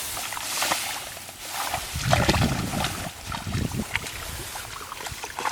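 Water sloshing and splashing in shallow, muddy rice-field water as hands and legs work through it, in irregular bursts, with the heaviest sloshes about two and three and a half seconds in.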